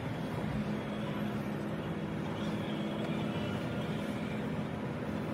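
Steady in-cabin drone of a Volvo B9R coach cruising at highway speed: the low hum of its six-cylinder diesel blended with road and tyre noise.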